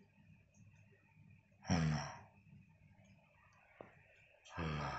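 A cat meowing twice, about three seconds apart, each call short and low-pitched, with a faint click between them.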